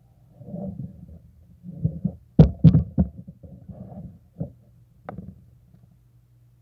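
Handling noise from a handheld camera: low rubbing rumbles with a few sharp knocks, the loudest a little over two seconds in and another about five seconds in.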